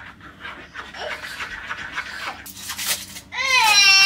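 A dog panting, then a long, wavering, high whine starting near the end.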